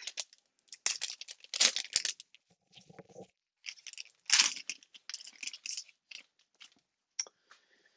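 A trading-card pack wrapper torn open and crinkled, with the cards inside rustling as they are slid out and handled, in irregular bursts.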